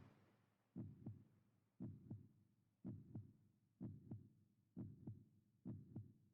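Faint heartbeat, each beat a pair of soft low thumps, six beats at about one a second.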